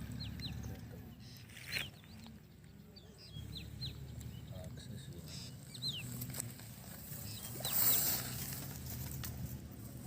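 Birds chirping: many short, high, falling chirps over a steady low hum, with two brief noisy swishes, one about two seconds in and a louder one near eight seconds.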